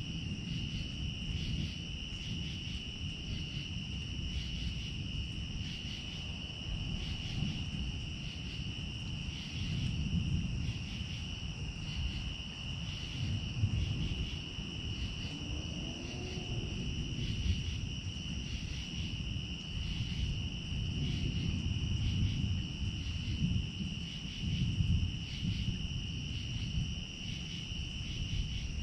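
Night insects, crickets, calling in a steady chorus: a continuous high trill with regular pulsing chirps above it. An uneven low rumble runs underneath.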